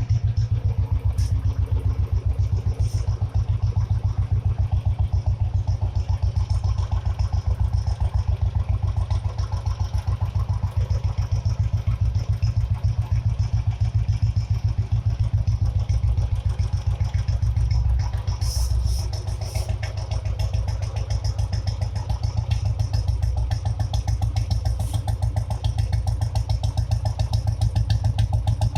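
Royal Enfield Bullet 350's single-cylinder engine running steadily through a short bottle silencer on the stock bend pipe, a rapid, even, deep exhaust pulse.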